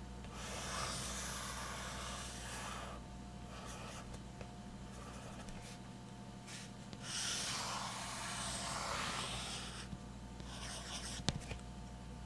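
Graphite pencil scratching on sketchbook paper as two circles are drawn, each in one continuous stroke of about three seconds, with shorter scratches between. There is one short sharp click near the end.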